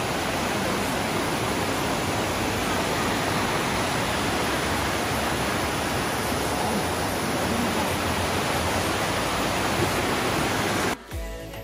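Steady rushing of a mountain stream pouring over rocks in small white-water cascades. About eleven seconds in, the water sound cuts off suddenly and quieter music takes over.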